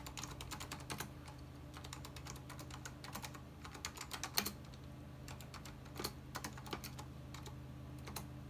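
Keys of the Macintosh IIcx's keyboard being typed at a Unix shell prompt, in several short runs of keystrokes with pauses between them. A steady low hum runs underneath.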